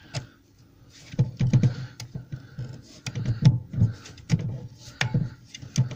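Irregular plastic-and-metal clicks and clunks from a Triton plunge router's depth-adjustment knob and mechanism being turned and handled by hand, two or three a second.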